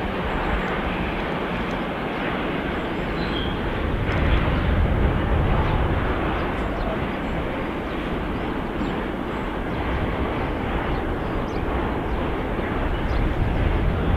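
Steady rolling rumble of a container freight train passing in the distance.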